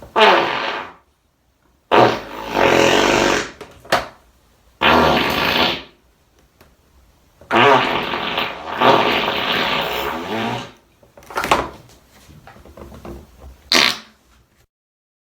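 A string of fart sound effects: several blasts of different lengths separated by short silences, the longest lasting about three seconds in the second half.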